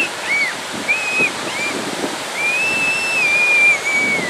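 Ocean surf breaking and washing through the shallows, with several short high-pitched squeals early on and one long, wavering high squeal from just past the middle nearly to the end.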